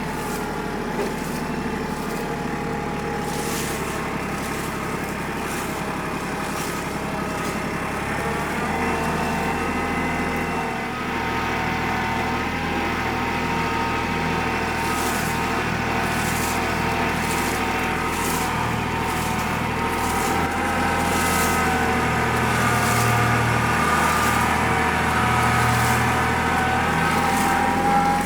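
Engine of a small farm vehicle running steadily as it drives, a little louder in the last few seconds.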